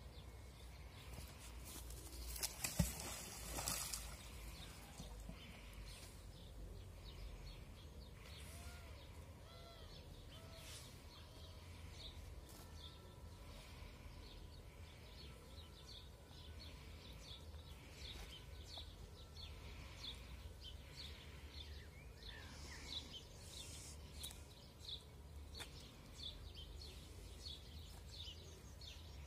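Songbirds chirping over a low wind rumble on the microphone. About three seconds in comes a brief, louder splash: the thrown magnet hitting the water.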